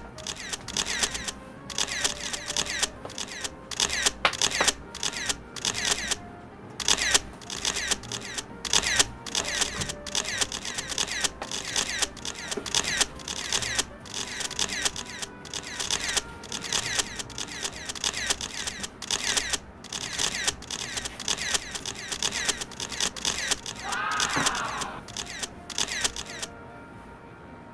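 Dense, irregular crackling and rustling, many sharp crackles a second, of the kind made by handling crinkly packaging or stiff fabric. There is a brief squeak near the end, and the crackling stops about a second before the end.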